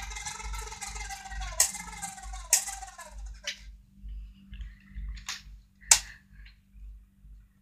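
Lego Technic electric motor running with a whine, its pitch slowly falling, then stopping about three seconds in. Afterwards come sharp plastic clicks and light clatter.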